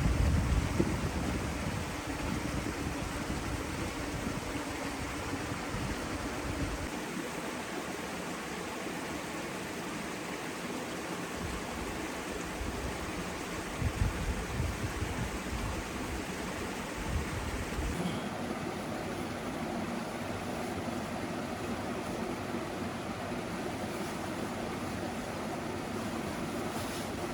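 Steady rushing outdoor noise, with irregular low rumbles at the start and again a little past the middle; its tone changes abruptly about two-thirds of the way through.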